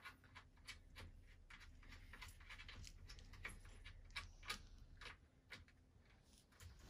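Faint, irregular small clicks and ticks from the hardware at the corner of a wooden drop-side crib being worked and tightened by hand, one a little louder about four and a half seconds in.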